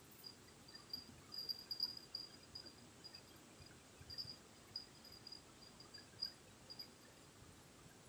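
Crickets chirping faintly: a thin, high trill at one steady pitch, broken into short pulses, now and then a little louder.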